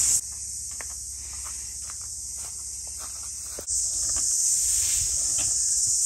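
Steady high-pitched chorus of insects. It drops away just after the start, leaving a quieter stretch with a few faint clicks, and comes back about three and a half seconds in.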